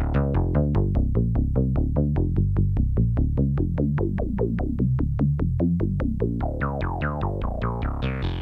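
Sequenced low synthesizer notes, about five a second, played through the Neutron Sound Damnation Alley filter prototype, a four-pole low-pass filter built on the SSI2144 chip. An envelope makes each note a short plucky filter sweep that starts bright and closes down. Near the end the sweeps open brighter and fall more slowly.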